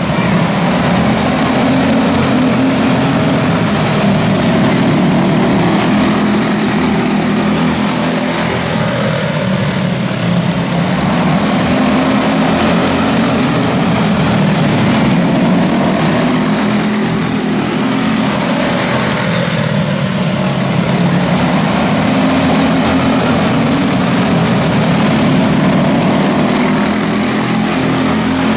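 A pack of quarter midget race cars with Briggs & Stratton Animal single-cylinder engines racing together on a dirt oval, their combined drone swelling and fading in pitch and loudness every several seconds as the field goes around the track.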